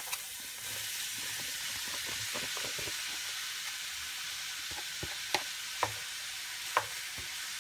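Onions sizzling steadily in hot oil in a stainless steel skillet as shredded rotisserie chicken is tipped in, then a spatula stirring it, with a few light knocks of the spatula against the pan in the second half.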